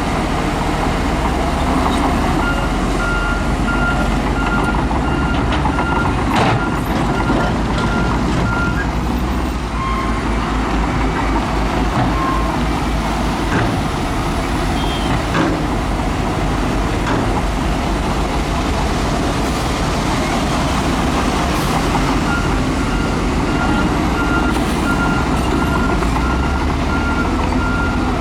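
Heavy diesel earthmoving machinery running steadily, with a reversing alarm beeping in an even series for several seconds near the start and again near the end. A few sharp metallic knocks come through the engine noise.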